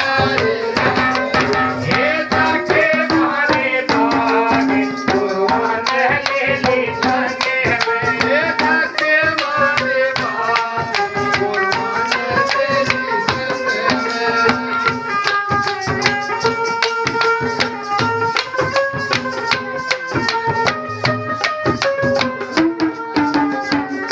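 Instrumental interlude of a Hindi devotional bhajan: a melody line moving up and down over fast, steady hand-drum strokes and a rattling jingle.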